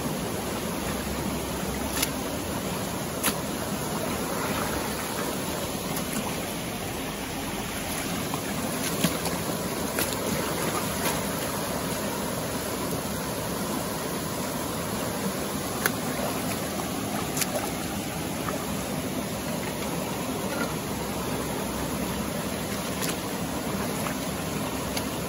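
Steady rush of a flowing river, with a few short sharp clicks a few seconds apart.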